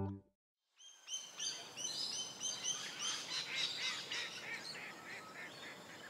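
A flock of birds calling, many short high calls repeated about two or three a second over a faint background hiss, thinning out toward the end. A few notes of music cut off just as it begins, followed by a brief silence before the calls start.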